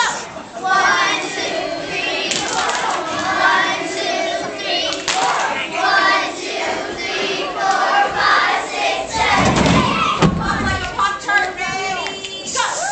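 A group of children's voices calling out and chattering together, with a few heavy thuds a little past the middle.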